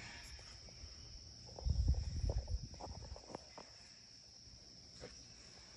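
Steady high-pitched chorus of insects, like crickets, carrying on throughout. About one and a half seconds in comes a flurry of low thumps and knocks lasting a second or so, louder than the insects.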